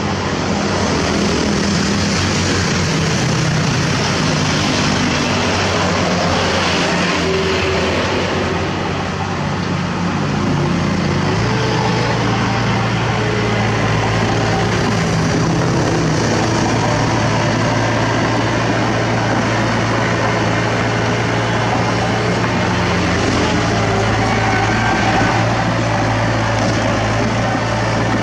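Heavy diesel engines running steadily: a tipper dump truck with its bed raised and a Komatsu crawler bulldozer beside it. The engine note changes and grows stronger about eleven and a half seconds in.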